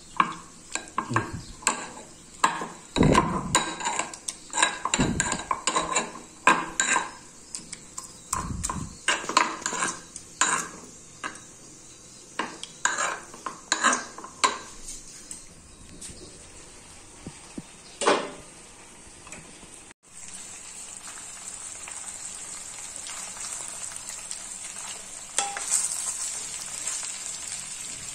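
Steel pestle pounding fermented bamboo shoot in a steel mortar: irregular knocks for about fifteen seconds, with one more later. About two-thirds of the way in, pork and bamboo shoot begin sizzling steadily as they fry in a wok.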